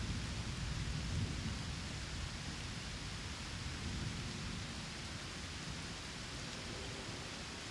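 Steady rain hiss, with a low rumble of thunder dying away over the first couple of seconds.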